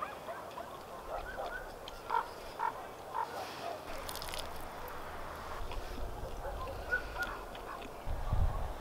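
Short animal calls, several in the first few seconds and a few more later, over steady outdoor background, with a brief low rumble near the end.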